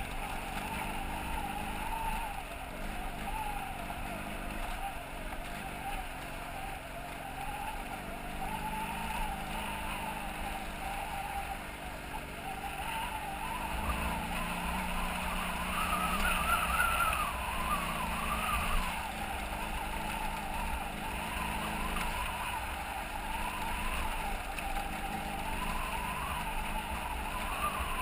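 BMW F800GS parallel-twin engine running on a gravel road, its pitch wavering with the throttle over continuous road and wind noise. The revs climb about halfway through, then drop back.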